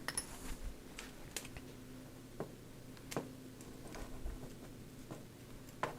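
Sporadic light clicks and taps, roughly one a second, from small metal parts of a starter motor being handled and worked loose during a strip-down, over a faint steady hum.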